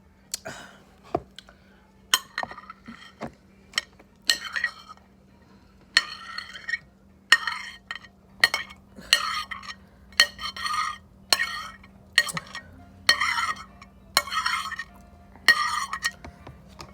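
A utensil scraping and stirring food in a bowl, mixing it together in repeated strokes about once a second, with a steady low hum underneath.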